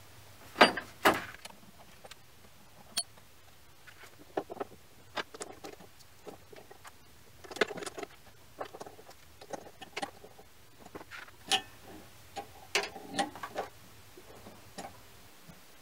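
Steel parts of a mini lathe's compound slide clinking and knocking as they are handled and lifted off by hand: scattered sharp clicks and taps, the loudest two close together about half a second in.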